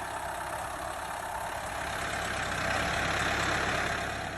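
Backhoe's diesel engine running steadily, getting slightly louder about halfway through.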